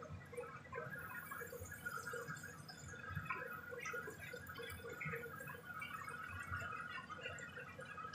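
Minced garlic sizzling gently in melted butter in a nonstick frying pan over a low flame, a fine scatter of small pops and crackles, with a spatula stirring and lightly scraping the pan.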